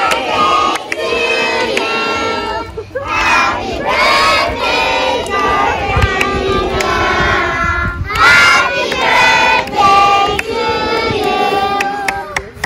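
A crowd of children's voices shouting and singing over one another, many at once, with some long held notes.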